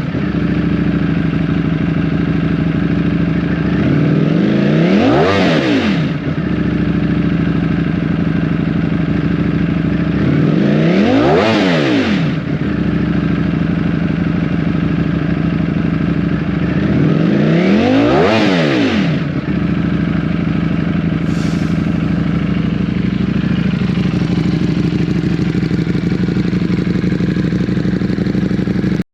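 Ducati Streetfighter V4S's 1103 cc V4 engine, breathing through an aftermarket Termignoni exhaust, idling and blipped three times. Each blip is a quick rise and fall in revs, about six seconds apart, and after the third it settles back to a steady idle.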